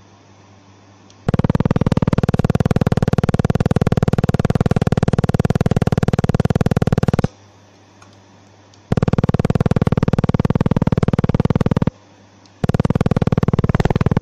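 500 W laser welder firing at a sheet-metal seam: a loud, rapid-pulse buzz at a steady pitch. It comes in three runs that switch on and off abruptly: about six seconds, then about three seconds, then a third run starting near the end.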